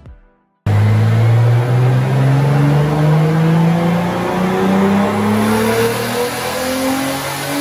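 Turbocharged BMW S54 straight-six in an E46 M3 making a loaded pull on a chassis dyno. It cuts in suddenly about half a second in and its pitch climbs slowly and steadily as the revs rise.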